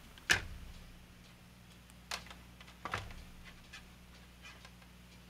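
A few sharp clicks and taps of hard plastic parts and tools being handled on a workbench. The loudest is about a third of a second in, with two more around two and three seconds in, and a steady low hum runs beneath them.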